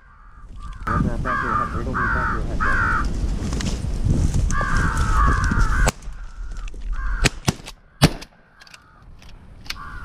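Crows cawing: three short caws a little over a second in, then a longer run of caws around five seconds. There is a single sharp crack about eight seconds in.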